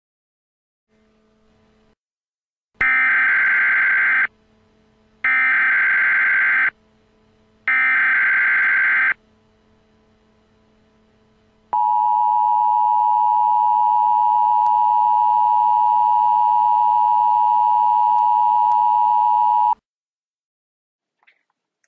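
Emergency Alert System SAME header: three identical bursts of screeching digital data, each about a second and a half long, followed by the steady attention tone for about eight seconds, announcing a new warning message.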